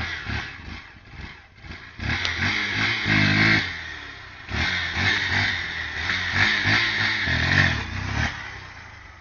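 Motorcycle engine revved hard several times, its pitch climbing and dropping with each surge, then falling back near the end.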